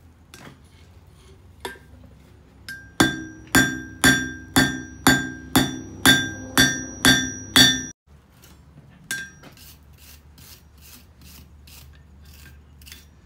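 Hand hammer striking a hot copper-and-nickel mokume gane billet on a steel anvil: about ten ringing blows, two a second, flattening the drilled holes level with the surface. Then a wire brush scrubs in quick, faint strokes.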